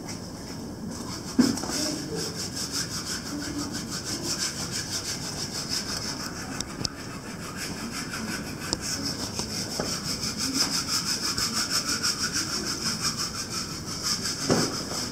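A keeper cleaning the enclosure with quick, even, back-and-forth scrubbing strokes, starting just after a knock about a second and a half in; another knock comes near the end.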